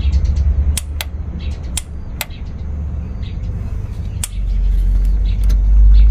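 Sharp clicks from a Scania truck's ABS solenoid modulator valves as they are triggered in a test, several of them at uneven intervals. Under them runs a steady low rumble that gets louder about four seconds in.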